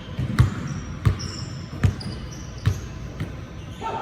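Basketball dribbled on a court: four even bounces about three-quarters of a second apart, each a sharp thump with a short echo.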